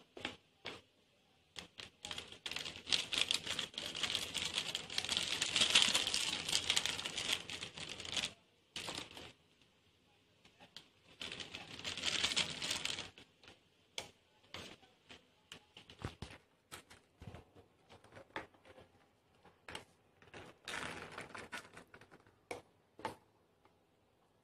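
Metal spoon scraping and clicking against a steel tumbler as thick urad dal jalebi batter is scooped out into a plastic cone. It comes in runs of rapid clicks and rasps: a long one in the first several seconds, shorter ones later, with single taps between them.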